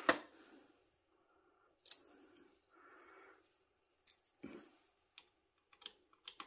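Scattered small clicks and taps of metal precision screwdriver bits and their plastic bit case being handled, with faint rustling between them; the sharpest click comes right at the start.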